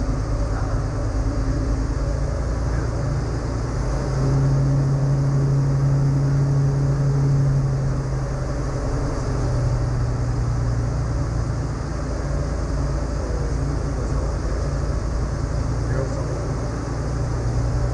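Rotax 912 four-cylinder engine and propeller of a Diamond DA20 Katana droning inside the cockpit, with a steady low propeller tone. About four seconds in it grows louder, and around eight to ten seconds in the tone drops lower as power comes back on the approach.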